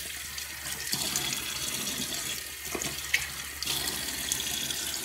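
Bathroom faucet running steadily into a sink, with small splashes as water is scooped up by hand to rinse the face after shaving.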